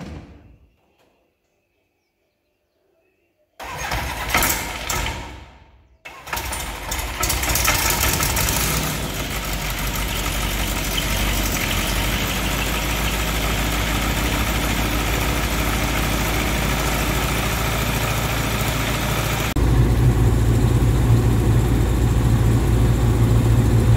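Rotax 912 Xtra aircraft engine, a flat-four, being started after its upgrade: the starter cranks about four seconds in, dies away, then the engine catches at about six seconds and settles into a steady run. Near the end the engine sound turns louder and deeper.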